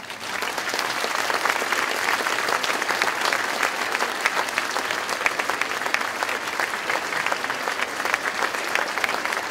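Audience applauding: many hands clapping in a dense, steady patter that starts abruptly and holds at an even level.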